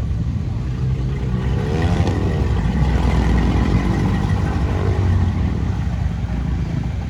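Off-road 4x4's engine revving hard over a low rumble, its pitch rising and falling and loudest from about two to five seconds in, as the vehicle labours on the course.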